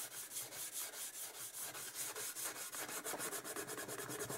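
Green Scotch-Brite abrasive pad scrubbed by hand over the finned alloy sump of a Kawasaki Z1000J engine, in quick, even back-and-forth strokes, several a second. It is keying the surface for paint.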